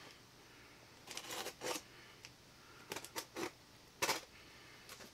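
Knife slicing the tape on a cardboard shipping box: short, faint scraping cuts in two quick runs, then a sharp click about four seconds in.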